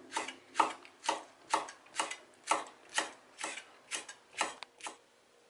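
Chef's knife chopping serrano peppers finely on a wooden butcher-block cutting board: a steady run of knife knocks, about two a second, that stops shortly before the end.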